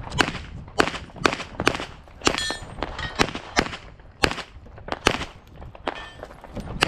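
Glock 34 9mm pistol firing a stage string: about a dozen sharp shots, some in quick pairs, with short pauses between groups.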